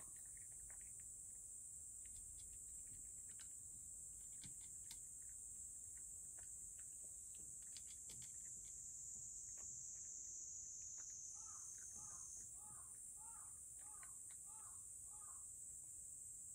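Faint, scattered clicks of a cat eating from a dish, over a steady high-pitched hiss. Near the end comes a short run of about seven soft double chirps.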